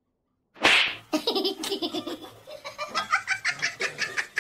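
A sharp loud burst about half a second in, then a person laughing in quick repeated pulses that climb higher in pitch.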